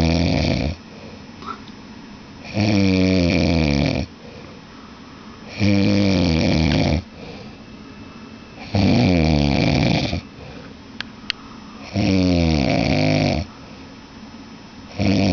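Loud snoring: a pitched, wavering snore about a second and a half long, repeating roughly every three seconds, with quieter breathing gaps between. Two faint clicks fall in one of the gaps.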